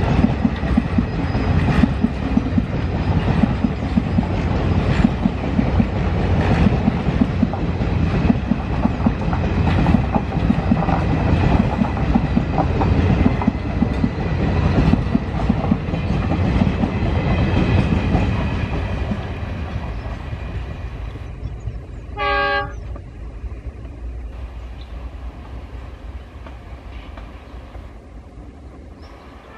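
Train running past, wheels clacking over the rail joints, then fading away over the last third. A short horn blast sounds once, a little past two-thirds of the way through.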